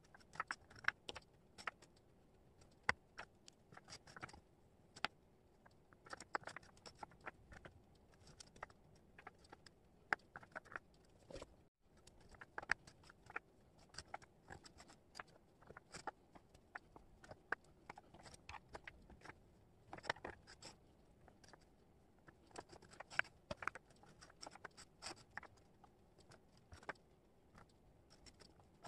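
Wooden jigsaw puzzle pieces being picked up, slid and set down by hand on a cork board: quick, irregular light clicks and scrapes as pieces tap against each other and the board.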